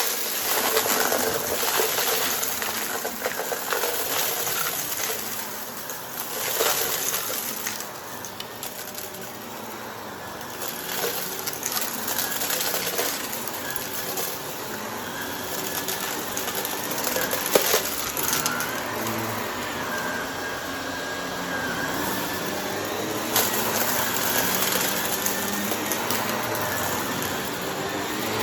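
Vacuum cleaner running with its brushroll spinning, crunching and rattling up debris, with a few sharp cracks along the way.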